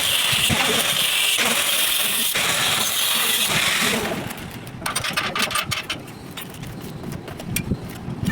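Arc welding: a steady crackling hiss of the arc that stops about four seconds in, followed by a run of light, sharp metallic clicks and taps.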